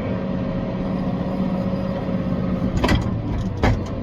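Tractor engine running steadily under load, with a couple of sharp knocks or rattles about three seconds in.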